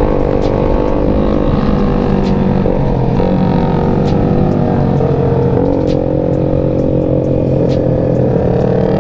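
Yamaha Jupiter MX 135's stock single-cylinder four-stroke engine running hard at steady high revs under way. Its pitch dips briefly a few times.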